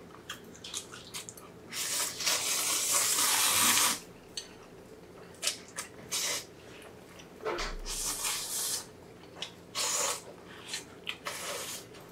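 Two people slurping cold spicy bibim noodles (bibimmyeon) off chopsticks: a long, loud slurp of about two seconds near the start, then several shorter slurps, with small clicks in between.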